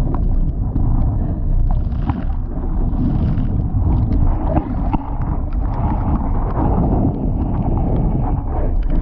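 Wind buffeting the microphone over water rushing and splashing along a Laser dinghy's hull as it sails fast on a reach in gusty wind.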